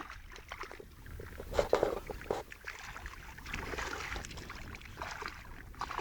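Water splashing and sloshing as a catch of carp is hauled out of the river to be shown, with the loudest splashes about two seconds in.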